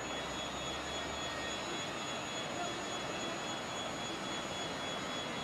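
Distant TEP70 diesel locomotive approaching, its V16 diesel engine heard as a steady far-off drone and rush.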